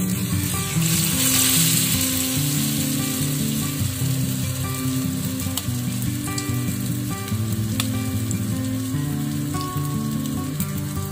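Grated vegetable fritter batter (sweet potato, squash and carrot) frying in shallow oil in a nonstick pan: a steady sizzle that swells about half a second in as the batter goes into the oil, with a few sharp pops. Soft acoustic guitar music plays underneath.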